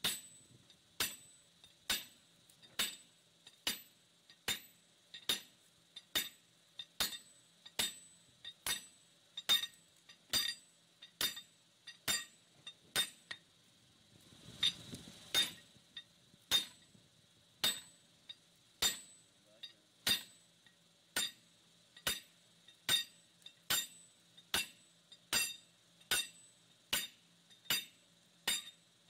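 Hammer blows on a hot steel bar over an anvil, forging a hammer eye drift to its taper: a steady rhythm of ringing metallic strikes, roughly one to two a second, with a short burst of noise about halfway through.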